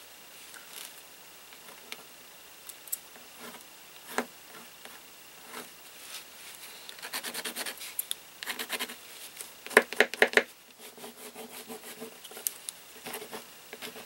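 Black Prismacolor pencil scratching and rubbing across painted paper in short shading strokes, with a run of quick back-and-forth strokes about seven seconds in and a few louder, harder strokes around ten seconds.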